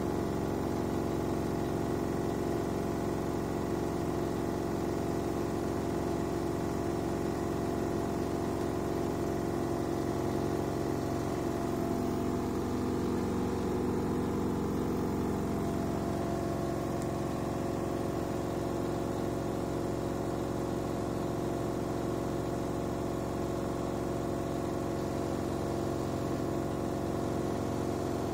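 LG AiDD direct-drive front-loading washing machine running a rinse with water in the drum: a steady mechanical hum with several steady tones, changing slightly about halfway through.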